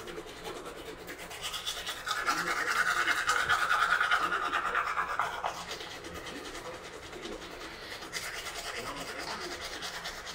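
Manual toothbrush scrubbing teeth in rapid back-and-forth strokes, louder for a few seconds near the middle.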